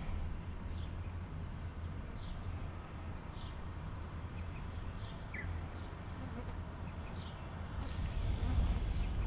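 A small bird repeating short, high, falling chirps about once a second, over a steady low rumble.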